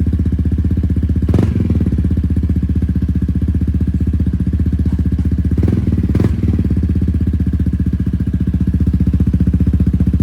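Kymco S400i scooter's single-cylinder engine idling steadily through an Arrow exhaust with the dB killer removed, an even loud pulsing note. A few brief sharp clicks cut through it, about one and a half seconds in and twice around six seconds in.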